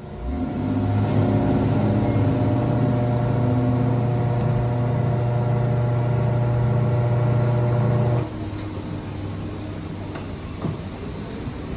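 A motor running with a steady hum, cutting off suddenly about eight seconds in, after which a quieter background hum carries on.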